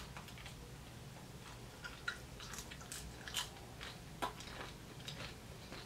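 A person chewing a mouthful of food with the mouth closed: faint, scattered wet mouth clicks at an uneven pace.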